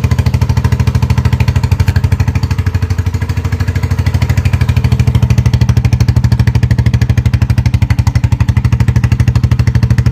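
Zanella Patagonian Eagle 150's single-cylinder four-stroke engine idling steadily, with an even, rapid beat of exhaust pulses. The exhaust runs through broken, leaking mufflers, each with a small hole drilled near the outlet.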